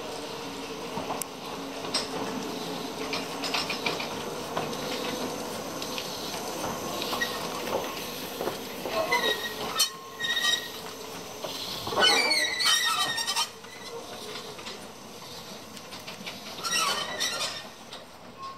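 Narrow-gauge steam tank locomotive moving slowly, with a steady hiss of steam and several high wavering wheel squeals from the track, the loudest about twelve seconds in.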